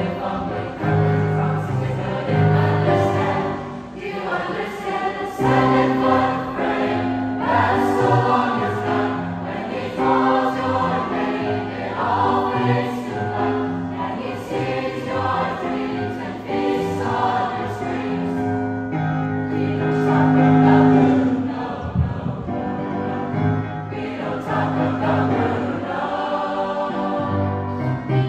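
Mixed choir of teenage voices singing in parts, accompanied by an electric keyboard.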